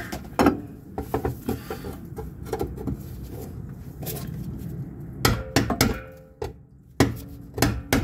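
Hammer striking a pry bar to knock a fuel pump module's metal lock ring around into its locking tabs on the fuel tank. Irregular metallic taps and knocks, with a cluster of harder, ringing strikes in the second half.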